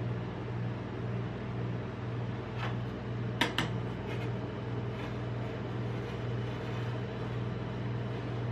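Steady low hum of a rolled-ice-cream cold-plate machine, with two sharp metal clicks about three and a half seconds in as the steel spatula knocks against the steel plate, and faint scraping as the spatula works the ice cream sheet.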